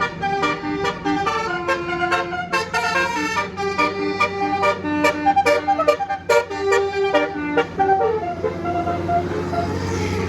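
Bus telolet basuri horn playing a quick melody of short, pitched notes over a steady low hum. The tune thins out about eight seconds in, leaving mostly vehicle noise.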